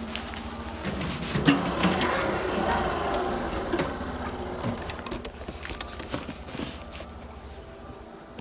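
Small delivery motorbike engine idling with a steady low rhythmic putter, with a few sharp clicks and knocks about a second or two in.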